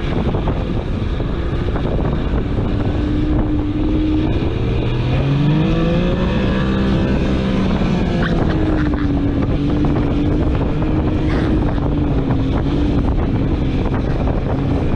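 70 hp outboard motor on an inflatable race catamaran running at speed: its revs climb about five seconds in, drop back a few seconds later, then hold steady. Wind buffets the microphone throughout.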